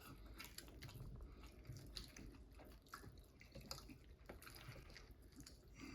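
Near silence with faint, scattered wet clicks of chewing and lip smacking.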